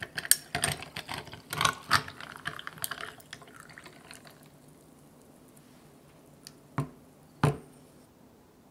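Tea poured over ice in a tall glass: a thin pouring stream with the ice cracking and clinking in a dense run of clicks, dying away after about four seconds. Near the end come two light knocks as the glass teapot is set down on the wooden tray.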